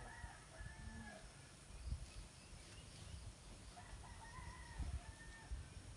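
A rooster crowing faintly twice in long, drawn-out calls: one already under way at the start and one about four seconds in. A couple of dull low thumps come in between and near the second call.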